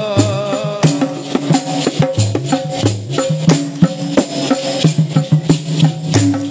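Dikir barat music in an instrumental passage between sung lines: drums and maracas keep a steady beat over a stepping bass melody. A held sung note dies away just under a second in.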